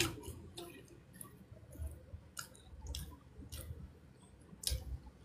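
A person chewing a pastry with lips closed: scattered short mouth clicks and lip smacks, a louder smack right at the start and another near the end.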